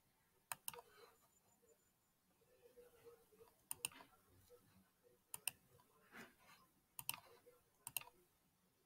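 Computer mouse button clicks: five sharp double clicks spread through a few seconds, over near silence.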